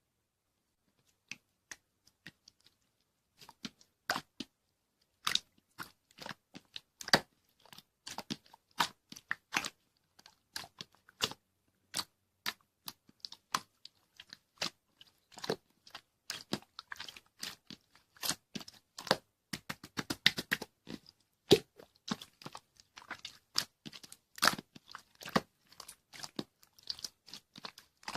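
Crisp, close-up crunching and chewing of food, with sharp irregular crunches that begin about a second in and come thick and fast from about five seconds on.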